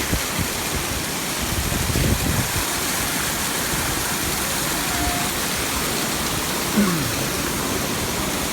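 Steady rush of falling water from the Tamasopo waterfalls, with faint voices in the background.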